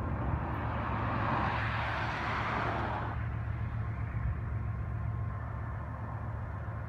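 GE ES40DC diesel-electric locomotive heard at a distance as it approaches, a steady low engine drone. A rushing noise lies over it and fades out about three seconds in.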